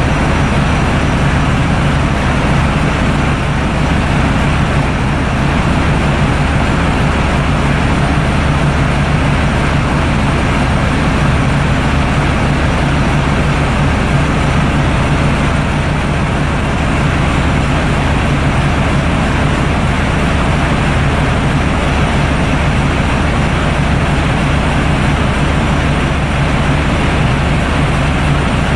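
Loud, steady running of a motor ship's diesel machinery heard inside the engine room: a constant low hum under dense mechanical noise, unchanging throughout.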